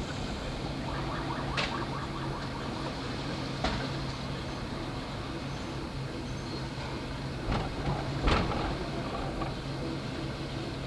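PCC streetcar running on street track: a steady low hum with sharp clacks from the wheels, four in all, the loudest a pair near the end.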